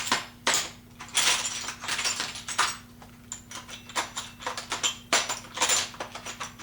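Small metal hand tools clinking and rattling against each other, in quick irregular clicks with short bouts of rummaging, as punches are sorted through on a workbench.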